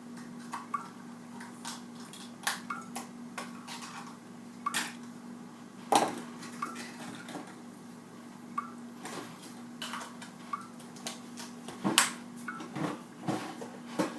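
Scattered clinks and knocks of kitchenware being handled, some with a short ring, the loudest about six and twelve seconds in, over a steady low hum.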